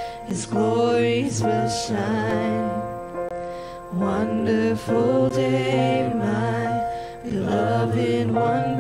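A small group of male and female voices singing a hymn in harmony, accompanied by an electric keyboard, in phrases a few seconds long.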